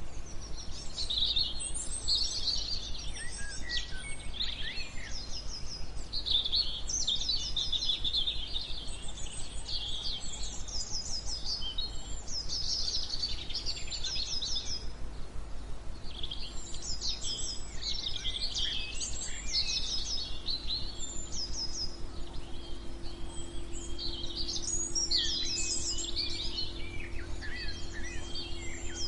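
Several songbirds chirping and singing in overlapping phrases, some as quick runs of repeated notes, over a steady white-noise hiss.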